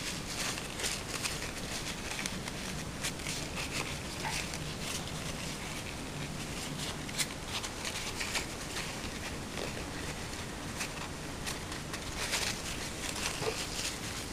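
Irregular small clicks and taps of hands handling small metal parts of a Hi-Capa airsoft pistol, over steady background noise.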